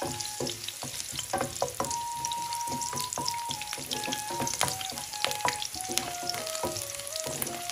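Sliced garlic sizzling in hot oil in a nonstick frying pan, stirred with a wooden spatula that gives many irregular clicks and scrapes against the pan.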